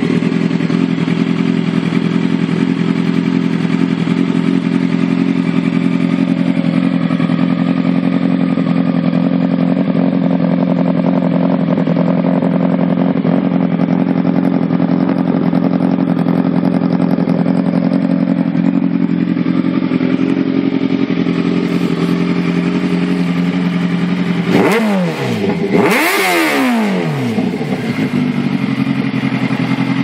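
2008 Kawasaki ZX-10R's inline-four engine idling steadily through a Racefit slip-on exhaust, then revved twice near the end, each rev rising sharply and falling back to idle.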